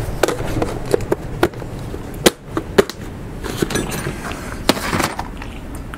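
Plastic tub of small car clips and screws being handled and put back on a cluttered workbench: irregular clicks and knocks, the two sharpest a little over two seconds in, half a second apart.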